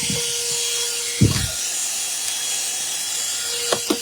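Plug-in car vacuum running with a steady whine and hiss while cleaning a car's interior; a dull thump about a second in and a couple of light knocks near the end.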